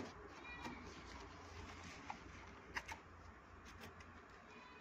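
Cardboard box being handled and its flaps pulled open: faint rustling and scraping of cardboard, with a few sharp taps about two and three seconds in.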